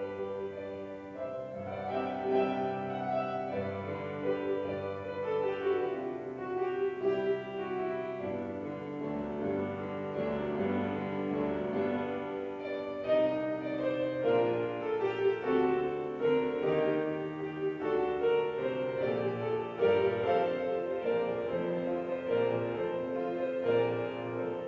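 Grand piano played solo: an instrumental piece of held chords with a melody moving above them.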